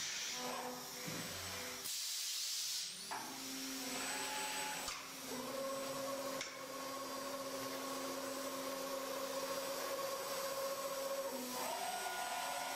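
5-axis CNC router milling wood: a steady spindle whine over cutting noise. It breaks off and changes abruptly several times.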